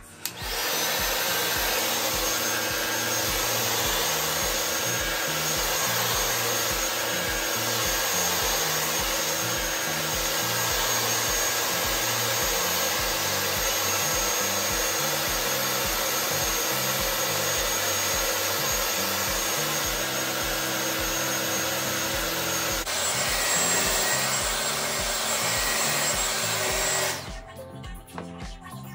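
Handheld hair dryer blowing steadily at the hairline, drying freshly brushed-on wig glue. Its sound shifts about 23 seconds in, and it cuts off suddenly near the end. Music with a steady beat plays faintly underneath.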